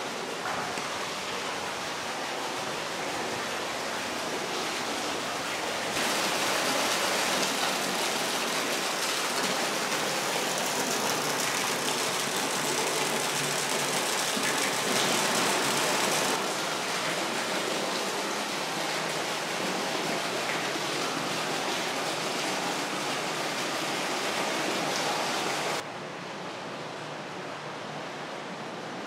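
Water pouring in through the roof of a canal tunnel and splashing into the canal below: a steady rushing splash, louder from about six seconds in to about sixteen, and quieter near the end.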